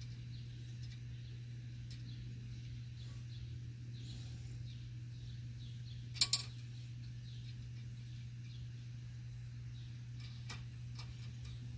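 Plastic trim panel around a pickup's trailer hitch receiver being pressed into the rear bumper and snapping into place: two quick sharp clicks about six seconds in, then a few fainter clicks near the end, over a steady low hum.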